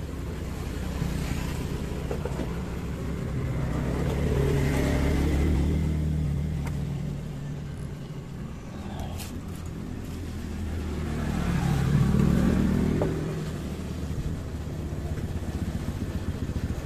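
Road vehicles driving past, their engine noise rising and fading twice: one pass about a third of the way in, another about three quarters of the way through.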